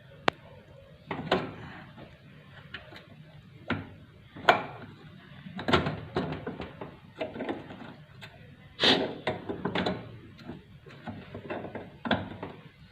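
Irregular knocks, clicks and clatter of parts being handled as a top-loading washing machine is taken apart, with a sharp click just after the start and several louder knocks around the middle.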